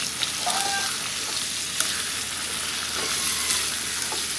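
Vegetables sizzling in hot oil in a pan as they are stir-fried, with a few sharp clicks of a utensil against the pan.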